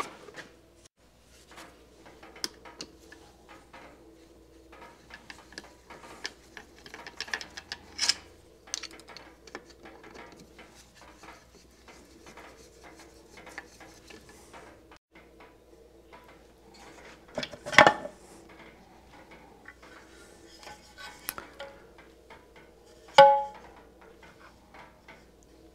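Faint clicks and clinks of hand tools and screws on the metal crankcase of a Kawasaki F7 175 engine as its side-cover screws are loosened. A few louder metallic clanks stand out, the loudest about 23 seconds in, ringing briefly.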